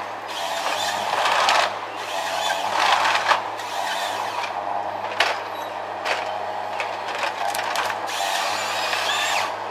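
Timber harvester at work: a heavy engine runs steadily, with mechanical noise that swells and fades, and several sharp knocks of wood and metal about halfway through and near the end.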